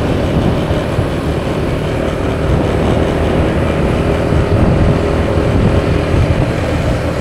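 Steady road and engine noise of a vehicle on the move through city streets, with wind rumbling on the microphone.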